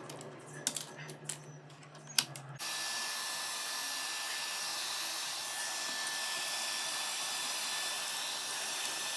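A few sharp clicks, then a loud, steady rushing noise of air that starts abruptly about two and a half seconds in.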